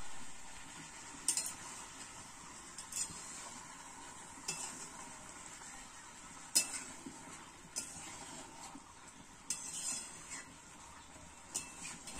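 Food being stirred in a pot, a metal utensil knocking and scraping against the pan about every second and a half, over a steady sizzle of frying.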